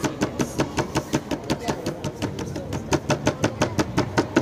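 Spray paint can being shaken, its mixing ball rattling in quick, even clicks about seven times a second.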